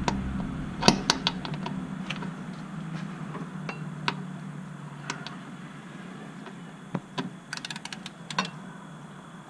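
Ratchet and half-inch socket clicking and clinking as they are fitted onto the muffler mount bolts, with a few sharp clicks about a second in and a quick run of clicks near the end, over a steady low hum.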